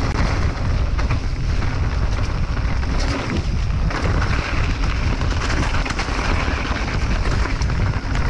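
Mountain bike riding fast downhill: tyres rumbling over the trail surface and the bike rattling with sharp clicks, under heavy wind buffeting on the microphone.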